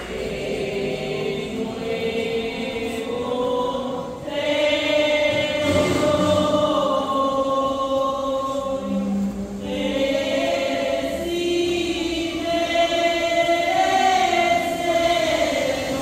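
A choir singing a slow religious hymn in long, held notes.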